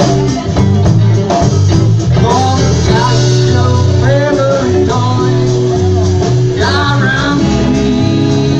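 Live blues band playing, with electric guitar over a steady bass line; the lead phrases have notes bent up and down in pitch.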